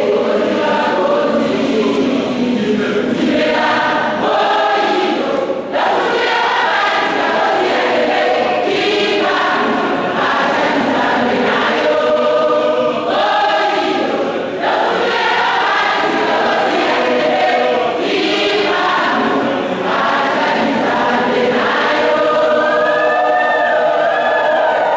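Choir singing a hymn, many voices in harmony in long phrases, with brief breaks between phrases.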